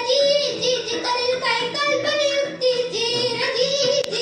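A young girl singing a Marathi song solo without accompaniment, in long held and bending notes.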